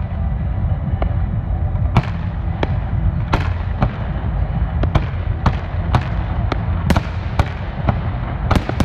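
Fireworks display: aerial shells bursting in an irregular string of sharp bangs, about a dozen, coming closer together in the second half, over a steady low rumble.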